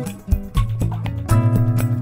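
Background music: an instrumental tune with sustained notes over a beat.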